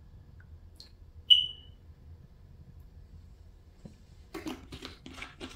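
A single short, sharp high-pitched chirp about a second in, like an electronic beeper, over a low steady hum. Then a few light knocks and rustles near the end as plastic marinade bottles are handled over the pan.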